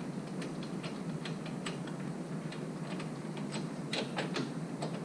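Hand ratchet clicking unevenly as it backs out an already-loosened hub assembly mounting bolt on a Ford F150 knuckle, over a steady low hiss.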